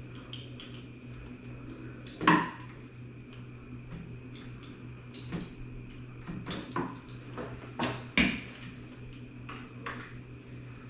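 Clicks and knocks of a baby rocker's tubular frame and plastic parts being handled and fitted together during assembly: a sharp knock about two seconds in, then a run of smaller clicks and knocks around six to eight seconds.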